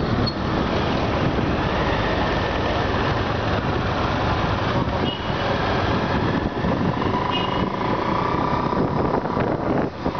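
Wind rushing over the microphone of a moving motorbike, a steady loud noise, with the bike and surrounding road traffic running underneath.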